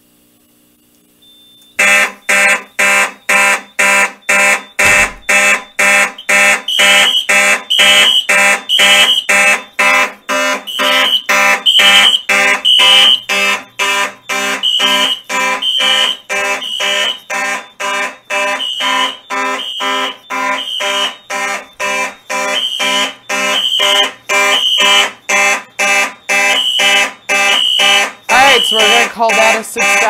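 A fire alarm system goes into alarm just under two seconds in, set off by fog tripping the smoke detectors. Mechanical fire alarm horns sound loudly in march time, about two blasts a second, with a higher tone beeping about once a second from about six seconds in.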